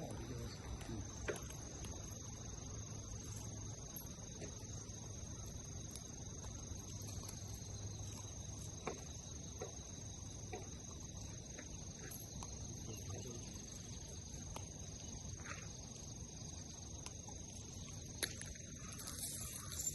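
Steady high-pitched chorus of insects, crickets by its sound, with a few isolated sharp clicks.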